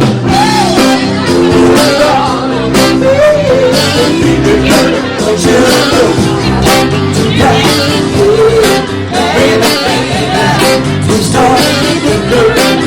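Live band playing a song with a singer, over a steady beat of drum hits.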